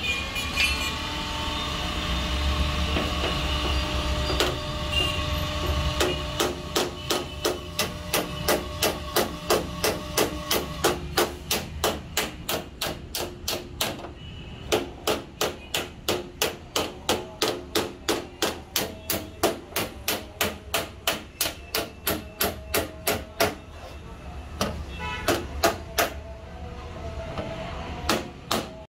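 Small steel body hammer tapping a dent out of a car's sheet-metal panel: quick, even strikes about two to three a second, in runs broken by short pauses. The first few seconds hold a steady hum from an electric heat gun before the hammering starts.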